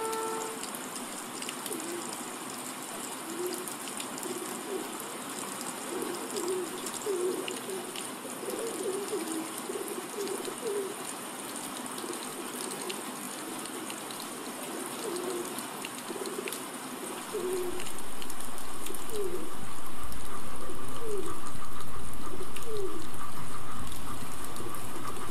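Pigeons cooing, imitated with a human voice, a run of short bending calls over a faint hiss. About 17 seconds in, a louder steady rumble with a thin whine sets in: a voiced imitation of an arriving electric train.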